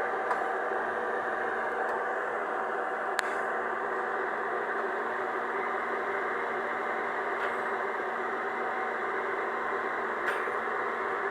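Excavator's diesel engine running steadily, with a few short sharp clicks or knocks over it.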